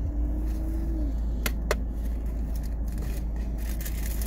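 Low steady rumble of a car idling, heard from inside the cabin, with crackly rustling of a takeout bag and box being opened. There are two sharp clicks about a second and a half in.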